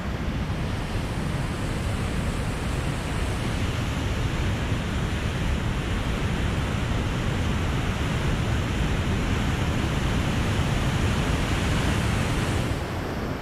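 Loud, steady rushing of a huge whitewater cascade on the Rio Pascua, an even noise with a deep low rumble and no let-up.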